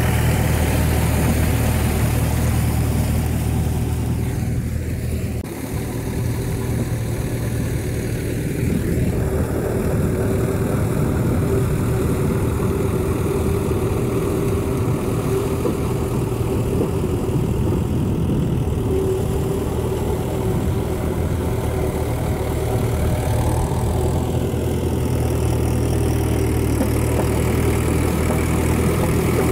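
A Swaraj 843 XM tractor's three-cylinder diesel engine running steadily, with a brief change in its note and level about five seconds in.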